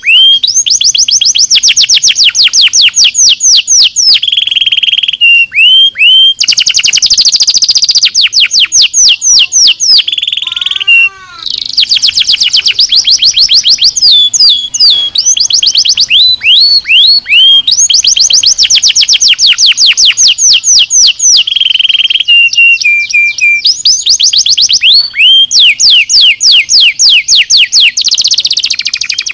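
Domestic canary singing a loud, continuous song of fast trills: rapid runs of high down-slurred notes at about seven a second, broken now and then by short held notes, with a brief break about eleven seconds in.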